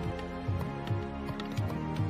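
Background music: held notes over a soft, low, repeating beat.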